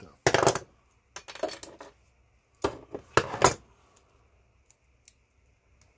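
Small metal parts clattering and rattling onto a hard surface, in several bursts over the first three and a half seconds, then two faint ticks.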